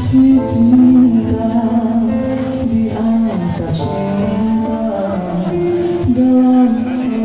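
A man singing a slow pop ballad into a handheld microphone over a backing music track, holding long, gently bending notes.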